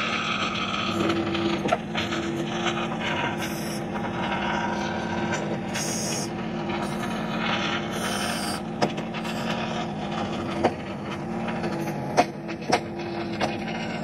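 Massey Ferguson GC sub-compact tractor's diesel engine running steadily under load as the backhoe arm pushes against the ground to shift the tractor, with a few sharp knocks in the second half.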